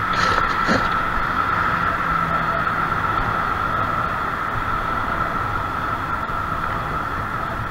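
Steady rush of wind and bicycle tyres on pavement, picked up by a GoPro on a moving cyclist, with a steady high hum running through it. Two brief hisses come about half a second in.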